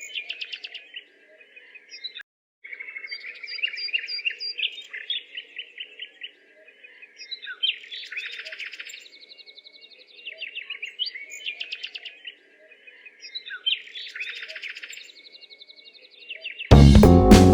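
Birds chirping and singing in repeated trilled phrases, a few seconds each with short pauses between. Near the end, loud guitar music abruptly takes over.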